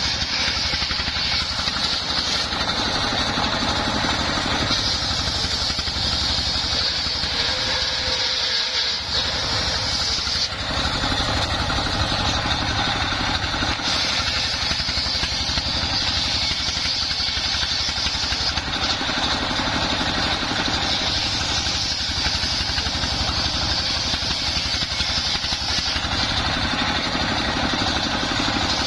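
Homemade circular saw bench, its blade belt-driven by a stationary single-cylinder diesel engine, ripping mahogany boards. The engine runs steadily under load while a high cutting hiss from the blade comes and goes in stretches of several seconds as boards are fed through.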